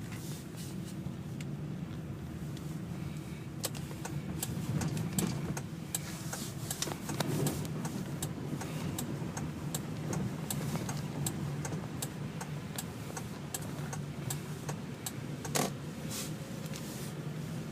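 A vehicle engine running with a steady low hum, with many sharp ticks and clicks scattered through it and one louder knock near the end.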